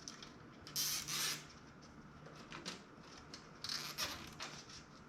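Nylon zip ties being pulled tight through their ratchets: two short rasping zips, about a second in and again near four seconds, with small clicks and rustling of cables between them.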